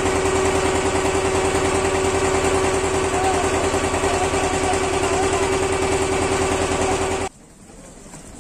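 A small ferry boat's inboard engine running steadily and loud, a fast even chugging under a constant hum. About seven seconds in it cuts off suddenly to quieter surroundings with faint voices.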